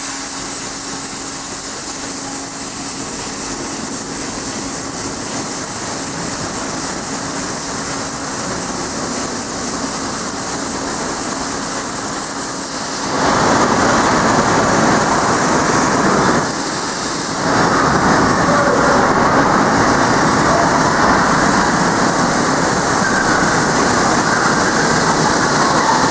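MUBEA CNC plate drilling machine running with a steady mechanical sound. About halfway through it becomes clearly louder and noisier, dips for about a second, then carries on at the louder level.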